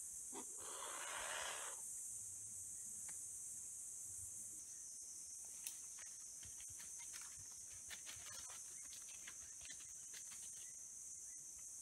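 Forest ambience: a steady high-pitched insect chorus, with a short rustle about a second in and scattered light crackles and ticks through the second half.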